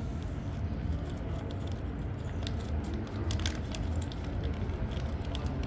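A tabby cat eating from a bowl of dry kibble and wet food: a run of quick, sharp crunching clicks as it chews, thickest in the middle. Toward the end comes the squelch of a wet-food pouch being squeezed out into the bowl, over a steady low rumble.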